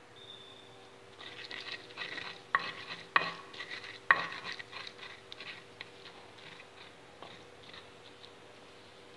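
Stone pestle grinding chilies, tomato and shrimp paste in a stone mortar (cobek and ulekan): a run of scraping, squishing strokes with three sharp knocks of the pestle on the stone about two and a half to four seconds in, then quieter grinding.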